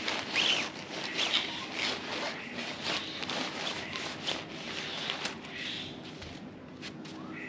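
Tent fabric rustling and rubbing while a tent is handled and pitched, with scattered short clicks and knocks.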